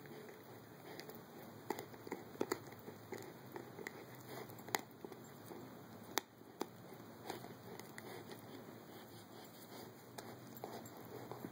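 Caucasian Ovcharka puppy gnawing on a bully stick (pizzle): soft chewing with scattered sharp clicks of teeth on the stick, the sharpest a few seconds in and around the middle.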